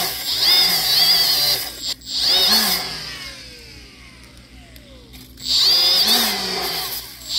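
Die grinder with a wire cup brush scrubbing rust and scale out of the freeze plug bores of a cast-iron engine block. It runs in bursts with a high whine that rises each time it spins up, is let off about three seconds in and winds down with a falling pitch, then starts again about two seconds later.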